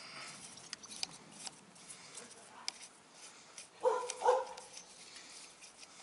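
Faint metal clicks and taps of a screwdriver working at a motorcycle battery's terminals. About four seconds in come two short high-pitched yelps in quick succession, the loudest sound here.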